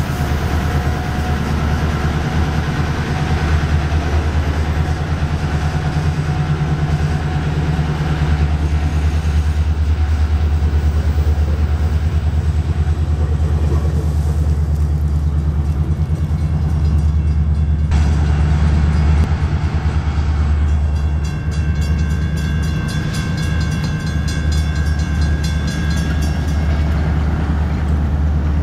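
Diesel passenger locomotives running, a steady deep engine rumble throughout. From about two-thirds of the way in, a steady high ringing joins for several seconds.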